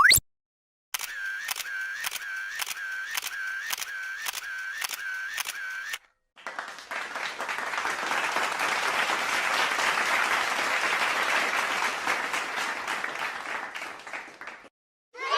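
Two separate sound effects. First, a short electronic chirp with a click repeats about twice a second for five seconds. Then, after a brief gap, a crowd applauds, swelling and then fading away.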